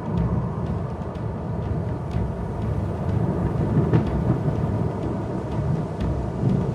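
Thunder rumbling low and continuously as a storm approaches, with a few faint ticks scattered through it.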